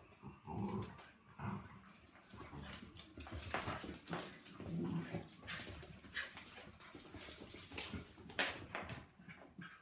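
A West Highland terrier, a Labrador puppy and a Labradoodle play-fighting, making short irregular growls and whimpers, with paws scrabbling on a wooden floor.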